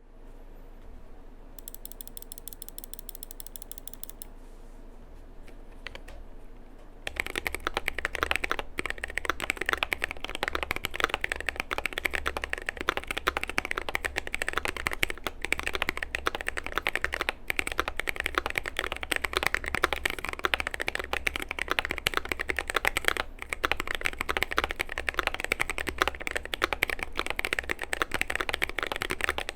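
Continuous typing on a Keychron Q2 mechanical keyboard with lubed Gazzew Boba U4T tactile switches and XDA keycaps, built with a polycarbonate plate and foam mods. The typing is a dense, steady stream of key clacks starting about seven seconds in; before that there is only a quieter, steady sound.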